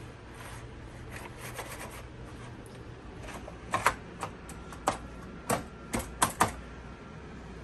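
Computer keyboard keys clacking in an irregular run of about ten sharp clicks, most of them in the second half, over a low steady hum.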